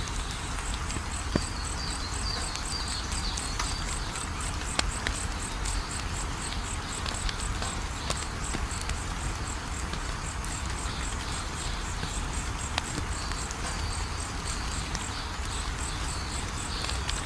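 Wood fire crackling with a few sharp pops, under insects chirping in a fast, even, high-pitched pulse that keeps going.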